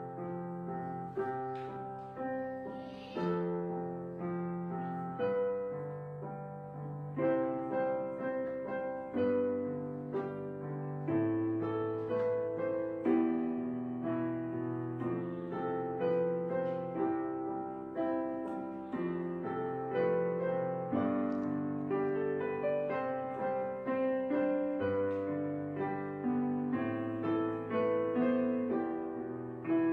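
Background piano music: notes and chords struck about once a second and left to fade.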